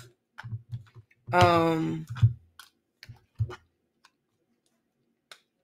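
Plastic makeup compacts clicking and knocking as they are handled and set down in quick succession, with a person's brief drawn-out vocal sound, like a hum, about a second in. The clicks thin out to a few faint ones near the end.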